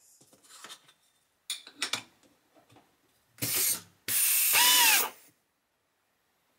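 Air-hydraulic rivet nut gun setting a rivet nut: a few light clicks of the plate against the nose, then a short loud burst from the pull stroke about three and a half seconds in. This is followed by about a second of louder air-motor whine, rising and falling in pitch, as the mandrel automatically unwinds out of the set nut. The whine stops suddenly.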